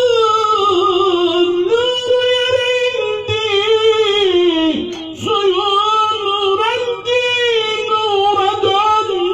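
A man chanting a Turkish mevlid solo, without instruments, in long held, ornamented high notes, breaking for breath about two, five and seven seconds in.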